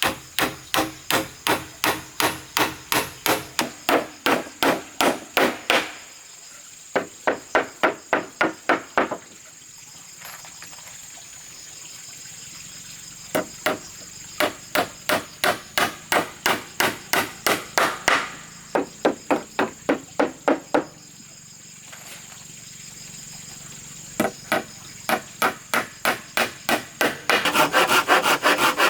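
A hammer striking wood in runs of about two to three blows a second, with short pauses between the runs, over a steady high insect drone. Near the end, hand-sawing of wood starts.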